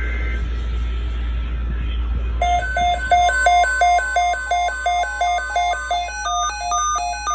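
Weather-radio alert alarm: after a couple of seconds of steady radio hum and hiss, an electronic beeping starts about two and a half seconds in, about three beeps a second with a higher stepping tone pattern over it, signalling an incoming weather alert broadcast. A short data screech from the tail of the digital alert header cuts off right at the start.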